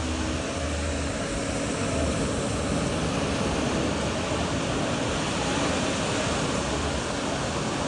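Steady rushing of surf and wind on the shore, with low, uneven rumbling from wind on the microphone.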